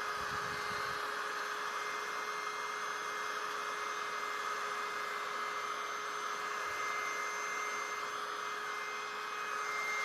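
Mini USB vacuum cleaner's small motor running steadily with a high whine, sucking up debris from a tile floor, with a few faint handling knocks.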